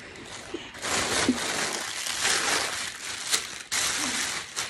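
Plastic shopping bag rustling and crinkling as clothes are pulled out of it, in two stretches with a short break near the end.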